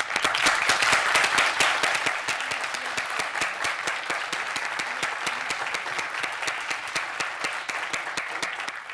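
Audience applauding: dense clapping that starts suddenly, is loudest in the first couple of seconds, then carries on a little softer.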